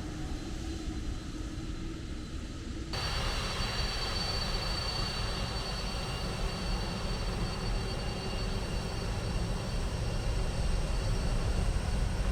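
Jet airliner on landing approach passing low overhead: engine rumble with a steady high whine, growing slowly louder toward the end.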